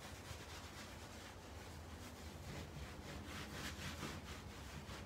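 Hands rubbing and pressing a terry towel laid over dampened printing paper, blotting off the extra water: soft, repeated brushing strokes.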